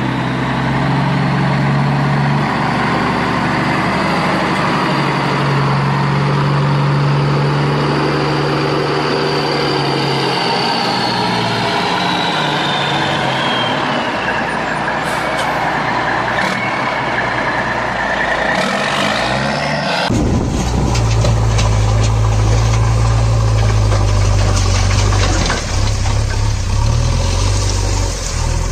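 Truck engine running, its pitch drifting and falling slowly through the middle. About twenty seconds in it cuts suddenly to a different, steadier low engine hum like an idle.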